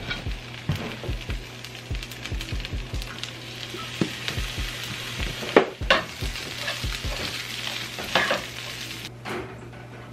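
A plastic slotted spatula scraping along metal sheet pans and scooping up roasted Brussels sprouts, in a run of scrapes and knocks against the pans. A steady low hum runs underneath.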